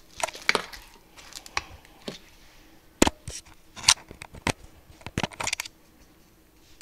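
Irregular clicks, taps and light crinkling as chocolate chips are added to a bowl of thick brownie batter. The two loudest clicks come about three and four seconds in.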